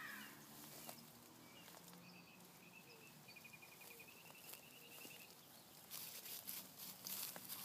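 Near silence with faint outdoor ambience: a faint, high, rapid trill in the middle, then soft rustling and clicks near the end as goats shift about on straw bedding.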